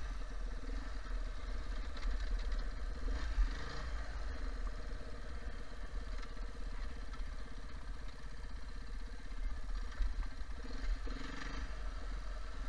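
Beta 430 RR-S four-stroke single-cylinder enduro engine running steadily as the motorcycle is ridden, heard from on the bike. The rider finds it smooth at low revs and not inclined to stall.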